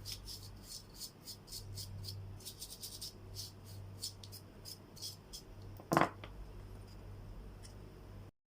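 Quick, scratchy scrubbing strokes cleaning the inside of an opened power bank, over a steady electrical hum. About six seconds in there is one brief, louder pitched sound, and near the end the sound cuts off suddenly.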